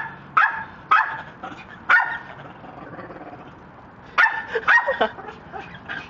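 Red-lored amazon parrot giving short, loud bark-like calls: four in the first two seconds, then a quick run of several more just after four seconds in.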